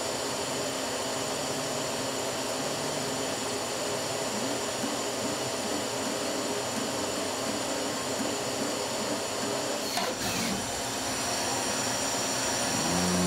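Citizen Cincom M16 Swiss-type CNC lathe running: a steady machine hum and hiss, with a series of short rising and falling whines partway through and a sharp click about ten seconds in.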